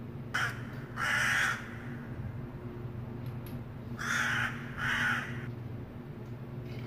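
Handling noise from the ring light and its light stand mount: four short scraping, rustling bursts of about half a second each as the parts are fitted together, over a steady low hum.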